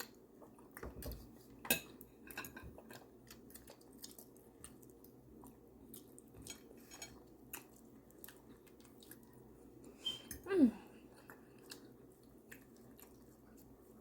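Eating at the table: chewing and scattered light clicks of cutlery against plates and dishes. About ten and a half seconds in, a brief loud tone slides down in pitch.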